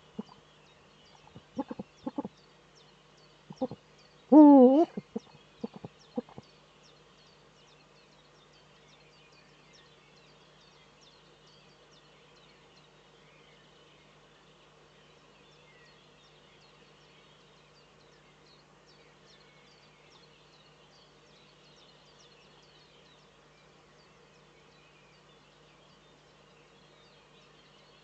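A male Eurasian eagle-owl giving courtship calls. One loud deep hoot comes about four and a half seconds in, with a few shorter, softer calls around it. After about six seconds the calls stop and only a faint steady background remains.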